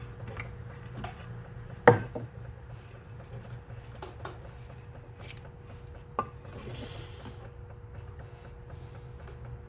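A short hiss of WD-40 aerosol spray, under a second long, about seven seconds in, with knocks from handling the opened hand mixer. The loudest is a sharp knock about two seconds in. A steady low hum runs underneath.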